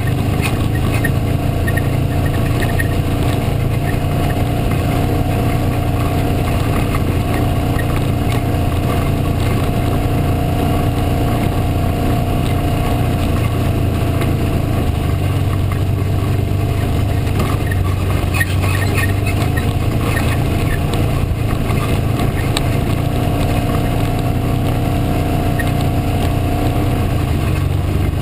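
Side-by-side UTV engine running at a steady speed, heard from inside the cab as it drives a rough dirt trail, with occasional rattles and knocks from the vehicle over the bumps.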